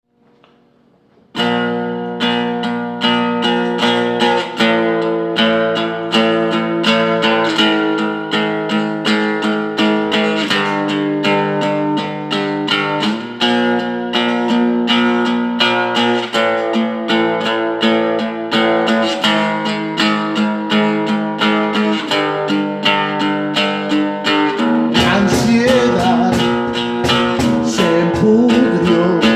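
Music: acoustic guitar strumming chords in a steady rhythm, starting about a second in. Near the end a bass and a wavering, voice-like line join in.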